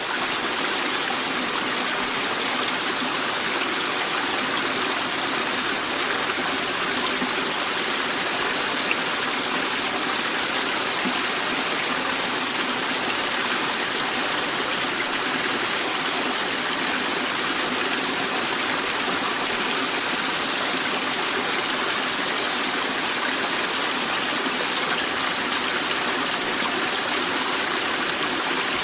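River water rushing over rocks, a steady, even rushing and splashing without a break.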